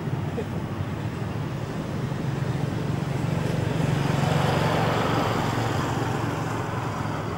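Steady outdoor rumble with a passing motor vehicle that grows louder to a peak about halfway through and then fades away.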